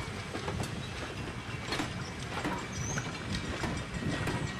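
Passenger coaches of a heritage train rolling past: a steady rumble of wheels on rail with irregular clicks and knocks.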